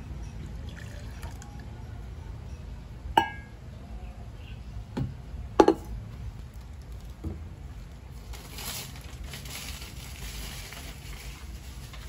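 Coffee poured from a stainless steel cup into a glass mug, then a few sharp clinks and knocks as the metal cup and glass mug are handled and set down on the wooden counter. The loudest knock falls about halfway through, and a soft hiss follows later.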